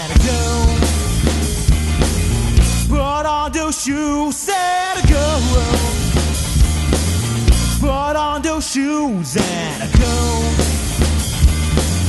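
A band playing live, with the drum kit prominent: steady bass drum and cymbal hits under bass. A melodic line bends and swoops in pitch twice, about three and eight seconds in.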